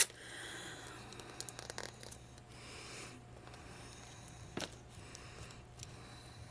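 Thin plastic seal film being picked at and torn from a plastic capsule ball, soft crinkling and tearing, with a single sharp click a little past halfway. The seal is stubborn and hard to open.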